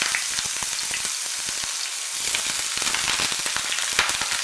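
Sliced onions sizzling in hot mustard oil in a frying pan just after going in, a steady hiss full of sharp crackles.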